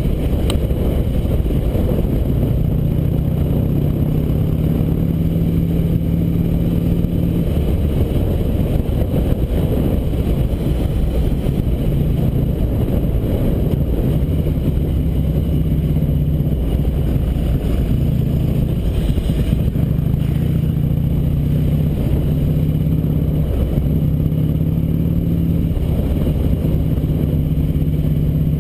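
Harley-Davidson V-twin engine running steadily under way at road speed, its note wavering slightly with the throttle, with heavy wind rush on the microphone.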